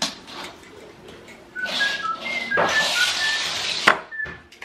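A person whistling a tune in short notes that step up and down in pitch, over a hissing noise, with a sharp click near the end.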